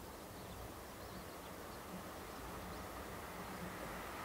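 Distant jet noise from a Boeing 747-400F's four engines at take-off power as it starts its take-off roll, faint and slowly growing louder. A few faint bird chirps sound over it.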